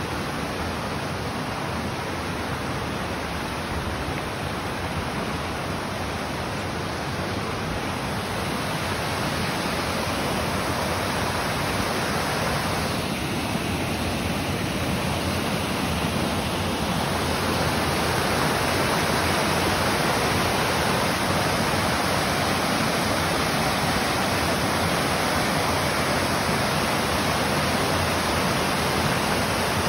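Steady rush of a rocky creek and waterfall, water pouring over stones and ledges, growing louder about halfway through.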